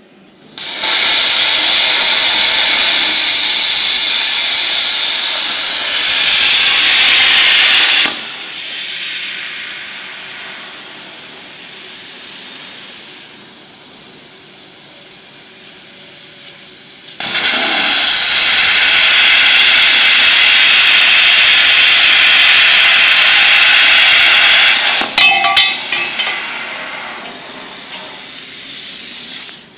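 Plasma torch of a CNC pipe-cutting machine hissing loudly in two long spells of several seconds each, with a quieter stretch between them. A few short metallic clicks follow the second spell.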